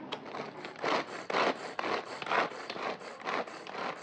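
Hand-operated vegetable chopper chopping onion pieces: its blades spin with each stroke, giving a rapid series of rasping whirrs, about two a second.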